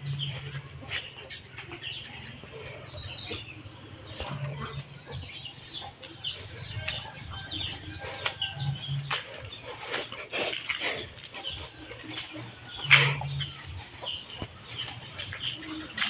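Chickens clucking among scattered short taps and knocks, with one louder knock about thirteen seconds in.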